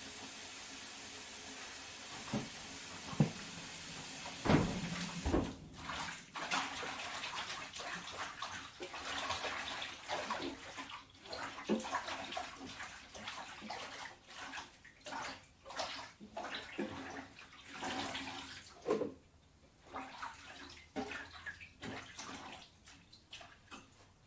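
Water splashing and sloshing in short, irregular bursts in a kitchen sink, with a few knocks. A steady hiss cuts off about five seconds in.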